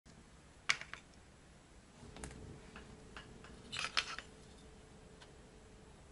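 Light clicks and taps from handling a small miniature bed frame and paper on a cutting mat: a sharp click about a second in, another near two seconds, and a quick cluster of clicks near four seconds.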